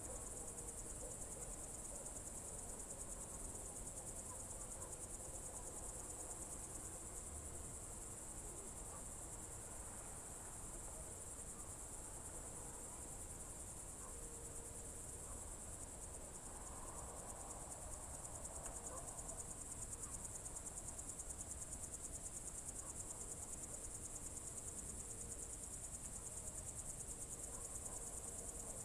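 Crickets trilling steadily: one continuous, high-pitched, rapidly pulsing chirr that never breaks.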